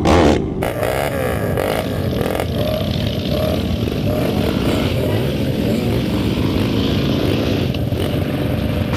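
Dirt bike engine running, loud for the first half second and then holding a steady, wavering drone.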